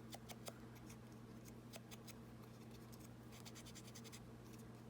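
Faint scratching and light ticks of paper being handled and rubbed on the work surface, with a thick patch of scratching about three and a half seconds in. A low steady electrical hum runs underneath.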